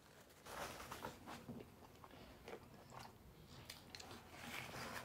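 A person chewing a mouthful of food close to the microphone: faint, irregular small clicks and crackles.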